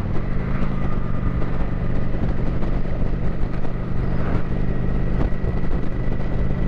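Kawasaki Vulcan 900's V-twin engine running on the road: its engine speed dips and picks back up in the first second, then holds steady.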